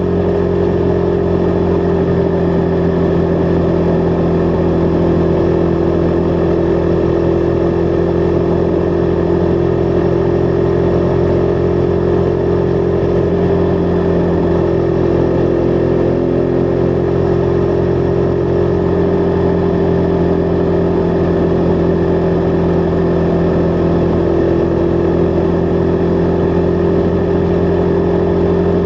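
Husqvarna Vitpilen 401's single-cylinder engine running under way, its note holding nearly steady as at a constant cruising speed.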